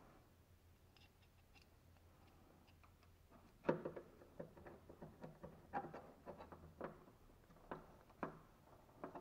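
Screwdriver driving the screws of a side handle's bracket into a steel tool box: faint ticks at first, then from about three and a half seconds in a string of sharp metal clicks and scrapes, the first the loudest.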